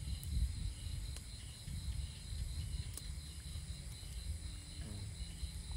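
Insect chorus of crickets trilling steadily in several high, even tones, over a low rumble, with a couple of faint clicks.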